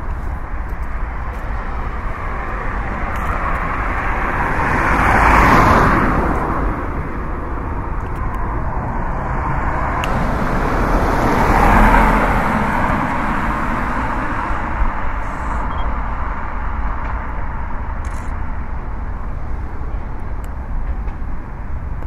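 Steady hum of road traffic, with two vehicles swelling louder as they pass, about five seconds in and again about twelve seconds in.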